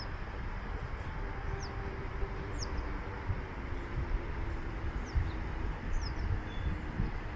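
Small birds giving short, high chirps that drop in pitch, several times, roughly once a second. Under them runs a low, uneven rumble with a few soft thumps.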